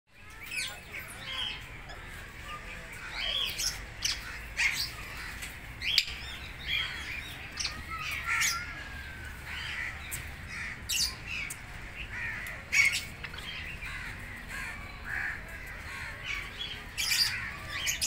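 African grey parrots calling: a continual run of short chirps, whistles and squawks, with sharp clicks scattered among them.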